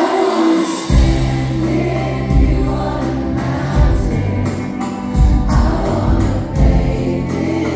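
Live pop band with a male lead singer, recorded from the audience in a concert hall; the bass and beat come in about a second in under the singing.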